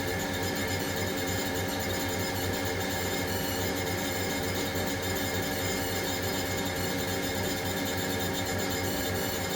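Haas SL30T CNC lathe running: a steady mechanical hum with several constant tones over it.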